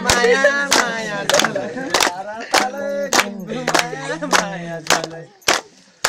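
A song sung to steady rhythmic hand-clapping, the claps coming a little under two a second. The singing stops a little over five seconds in, while the clapping carries on.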